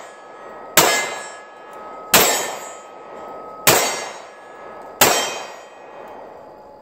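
Four shots from a small revolver, fired slowly one at a time about a second and a half apart. Each crack rings out and dies away over about a second.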